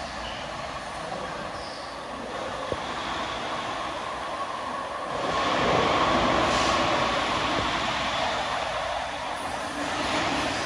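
Muni Metro light-rail train running into an underground station platform and slowing to a stop. Its rumble grows louder about five seconds in as the train draws alongside.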